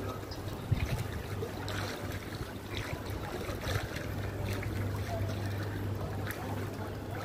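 Floodwater splashing and sloshing over a steady low hum, with scattered short splashes.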